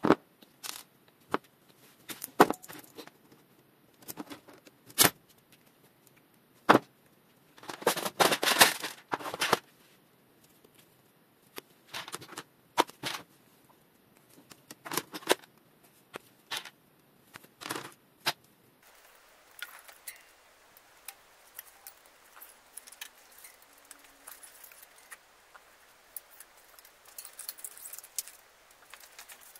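Bicycle cable housing being handled and cut with a cable cutter: sharp separate snips and clicks, a burst of rustling and crackling of the plastic-coated housing, and a small end ferrule pushed onto a cut end. From about two-thirds through, only faint scattered clicks of handling.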